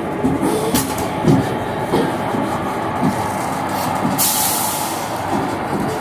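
WAP-4 electric locomotive moving slowly along the track with scattered knocks and clicks from its wheels and running gear, and a burst of hiss about four seconds in that lasts about a second.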